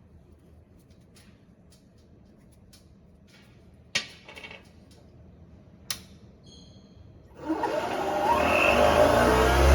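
Two sharp clicks, then a mini bench table saw's small electric motor starts about seven and a half seconds in and spins up with a rising whine, building to a loud steady run.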